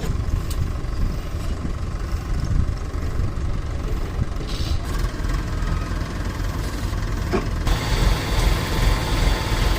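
Tractor's diesel engine running steadily with a low, deep note. A brighter hiss joins in near the end.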